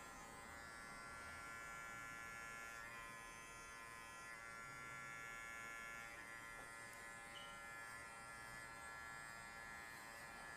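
Cordless electric pet clipper fitted with a 13 mm guard comb, running with a faint, steady buzz as it trims the fur on a small dog's ear.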